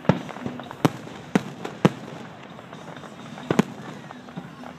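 Aerial fireworks shells going off in a series of sharp bangs, about six in all, with a quick double bang about three and a half seconds in.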